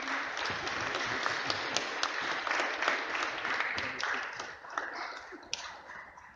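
Audience clapping, a dense patter of many hands that stays loud for about four seconds, then dies away near the end.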